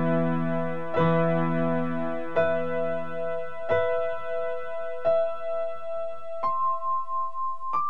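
Slow, sad piano music: a new note or chord is struck about every second and a half and left to ring. The low notes drop out about halfway, leaving single higher notes.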